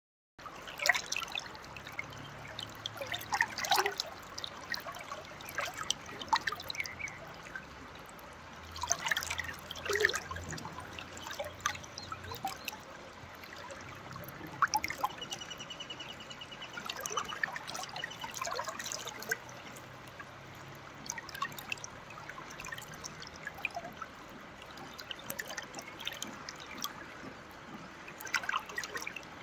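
Riverside water flowing and trickling: a steady wash broken by irregular sharp splashes.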